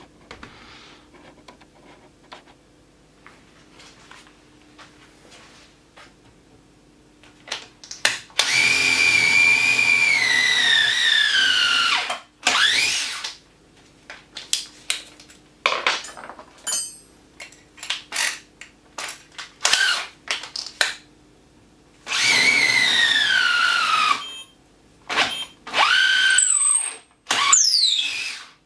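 Festool TI 15 cordless drill boring with an auger bit: after a quiet start with a few clicks, two long runs of motor whine whose pitch falls as the bit loads up in the wood, with many short trigger bursts between and after them.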